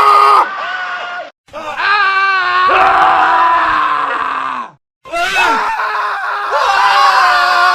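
Men screaming, one edited clip after another, broken twice by short silent gaps; at times several voices overlap. The scream about two seconds in wavers in pitch.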